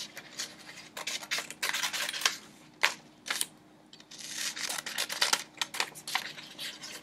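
Safety scissors snipping through paper in a run of short, crisp cuts, with the sheet rustling as it is turned between cuts. There is a brief pause a little past halfway.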